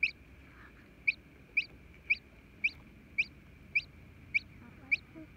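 Chick peeping from inside its hatching egg: a steady run of short, high peeps, about two a second.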